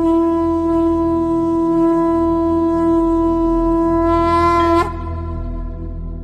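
Conch shell (shankh) blown in one long, steady note that rises slightly and stops abruptly about five seconds in. A quieter musical drone carries on after it.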